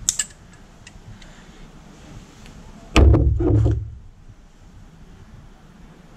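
A few light metallic clicks as pliers work a spring clamp on a motorcycle coolant hose. About three seconds in comes a loud thud with a deep rumble lasting about a second.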